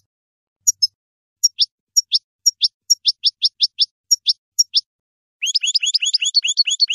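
European goldfinch singing: short, high chirps and quick downward-sliding notes, about three a second. About five and a half seconds in, the song breaks into a fast twittering run.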